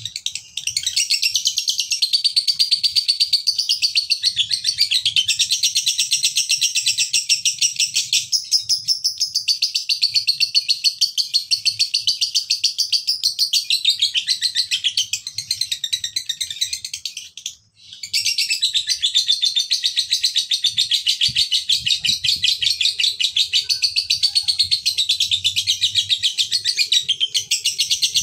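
Male lovebird singing its long, very rapid chattering song (ngekek), with one short break about two-thirds of the way through.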